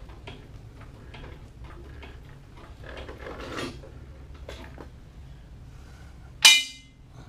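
A lift raising a riding mower, clicking evenly about three times a second like a ratchet, until about five seconds in. Near the end comes one loud, ringing metal clang.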